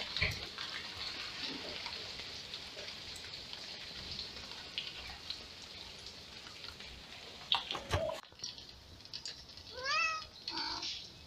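A cat mews twice near the end: a rising cry, then a shorter one. Under it there is a steady light hiss with scattered soft ticks, and a sharp knock a couple of seconds before the mews.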